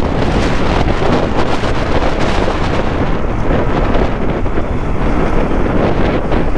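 Steady wind rushing over the microphone of a moving motorcycle, with the motorcycle's engine and road noise underneath.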